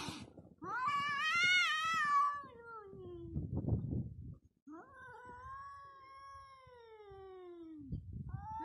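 A domestic cat yowling: two long, wavering cries that slide down in pitch, and a third starting near the end. These are the defensive yowls of a cat cornered by a dog.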